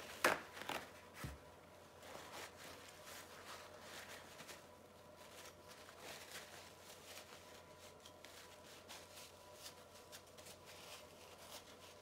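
Soft rustling and crinkling of a paper towel as a palette knife is wiped clean, after a sharp tap right at the start and two softer knocks.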